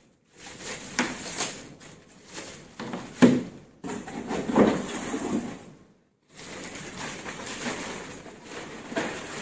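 Plastic packaging rustling and crinkling as a new laptop and a plastic-wrapped bag are unwrapped and handled, with a sharp knock about three seconds in.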